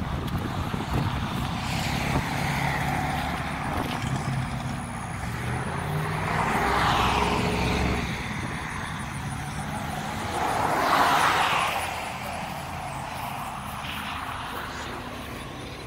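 Motor vehicles at an outdoor car lot: a steady low engine hum, with two louder swells about seven and eleven seconds in as vehicles pass by.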